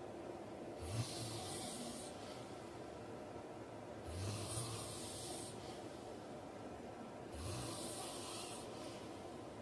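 A man snoring in his sleep: three breaths about three seconds apart, each a short low snore with a breathy hiss.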